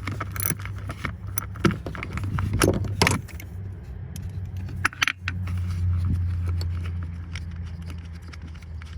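Metal tools clinking and rattling in irregular knocks against each other and the engine as the 10 mm bolt holding a Honda 3.5L V6's cylinder 3 ignition coil is worked loose, over a steady low hum.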